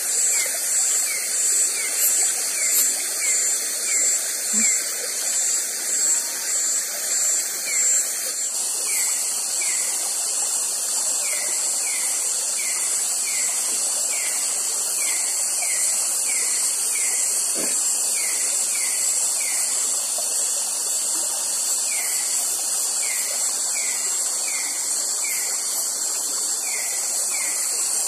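Tropical night insect chorus: a steady shrill high hum, with a short falling chirp repeating about twice a second. The chorus changes character abruptly about eight seconds in.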